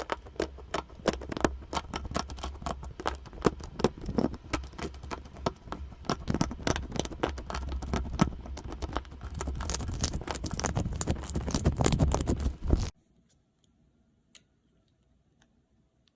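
Close-miked crackling and crunching of a soft material being squeezed or cut, with many small irregular crackles a second. It cuts off abruptly about thirteen seconds in, leaving near silence with a faint tick or two.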